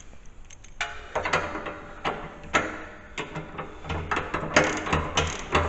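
Hand socket ratchet wrench clicking in quick uneven runs as a nut on a snow plow mount is turned, starting about a second in.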